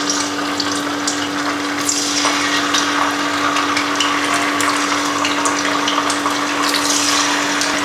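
Spice-marinated anchovies sizzling in hot coconut oil in a frying pan, a steady dense sizzle with sharp crackles scattered through it as more fish are dropped in.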